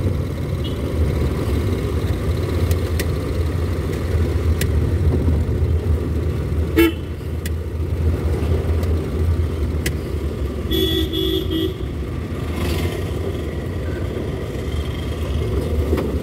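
A vehicle's engine and road noise drone steadily from inside the cab while driving. A vehicle horn toots briefly about seven seconds in, and again in a short stuttering toot about eleven seconds in.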